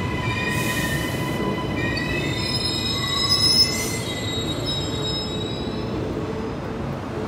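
Queensland Rail New Generation Rollingstock electric train running past with its wheels squealing on the rails: several high squeal tones that shift in pitch over a steady rumble, loudest about three and a half seconds in, then easing off.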